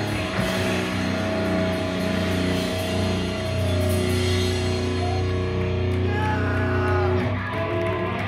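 Live loud rock band playing distorted electric guitars, bass and drums. About halfway through the cymbals and drums fall away, leaving the guitars and bass ringing on held notes.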